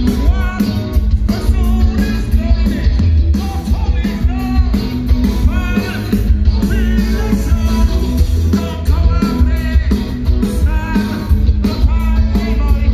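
Rock band playing live through a large outdoor PA: a singer's voice over electric guitar, strong bass and drums, heard from within the crowd.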